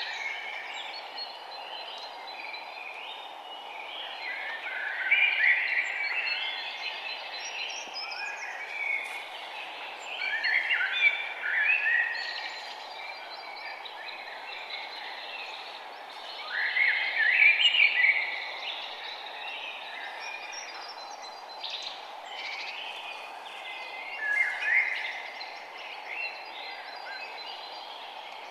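Forest songbirds singing in repeated phrases of quick chirping notes, with the loudest phrases coming about every six seconds, over a steady low background hiss.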